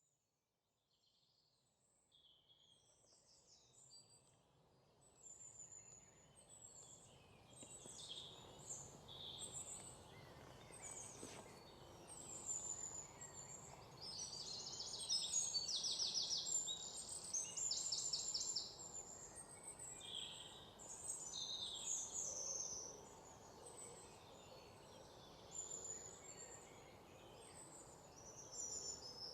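Many small birds chirping and trilling over a faint steady background hiss, fading in over the first few seconds; the calls grow busier toward the middle.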